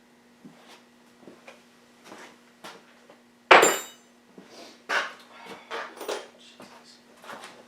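Metal hand tools and engine parts clinking and knocking as they are handled, with one loud metallic clank about three and a half seconds in that rings briefly.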